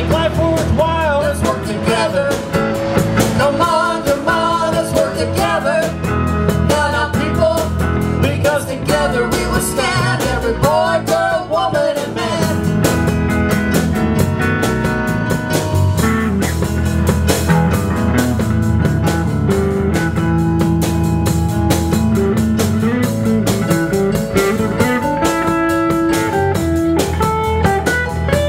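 Live blues band playing an instrumental passage on electric guitars, bass, drum kit and keyboard. A lead line of bending, wavering notes dominates the first half.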